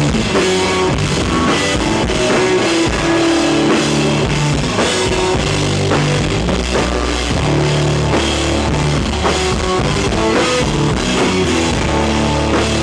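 Rock band playing an instrumental intro on drum kit, electric guitar and bass, loud and steady with no singing.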